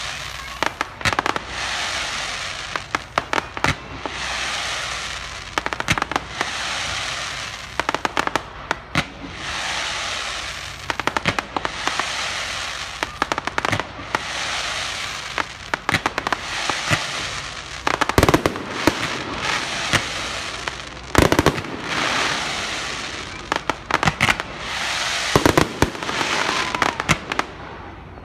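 Fireworks display: aerial shells bursting in quick succession, many sharp bangs over a continuous crackling hiss that swells every couple of seconds, with a few heavier, deeper booms in the second half.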